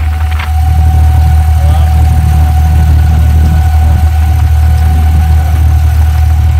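Engine of a wooden abra water taxi running steadily under way, heard from on board: a deep steady drone with a thin steady whine above it.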